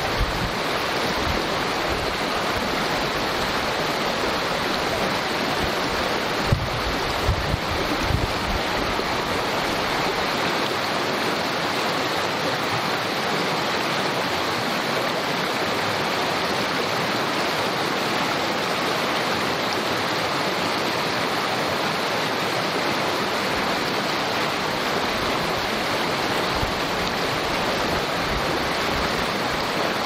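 Small creek rushing and babbling steadily. Around seven to eight seconds in, a few low buffets of wind hit the microphone.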